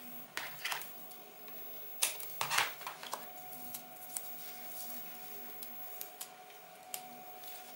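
Hands handling strips of double-sided tape on a hardboard backing board: scattered small clicks and short rustles, the loudest cluster about two seconds in.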